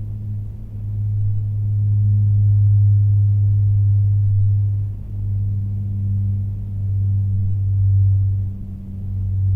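Distant propeller plane's engine drone, a deep steady hum that swells and fades every few seconds.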